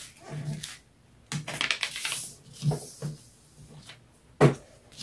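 A sheet of printer paper rustling and sliding as it is folded and creased, with a few light knocks and one sharp knock about four and a half seconds in.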